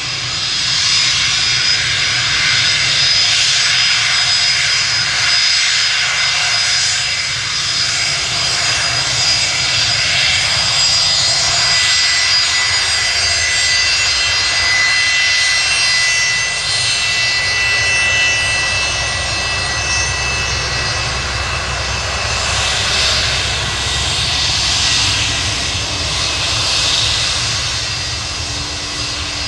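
Fokker 100's two Rolls-Royce Tay turbofan engines running loud and steady, a high whine over a broad roar.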